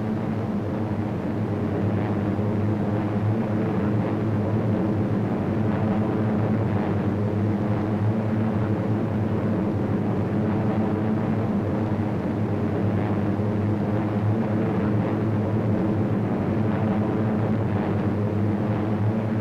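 Steady, even engine drone of a seaplane in flight.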